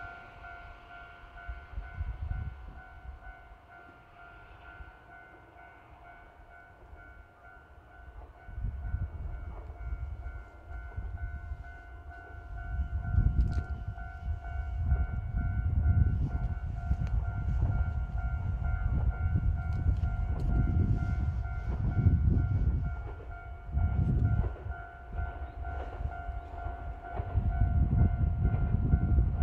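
Level-crossing warning bell ringing steadily in a repeating two-tone pattern while a Yōrō Railway electric train approaches, its wheels on the rails building into a low rumble from about halfway through that swells and fades and grows loudest near the end.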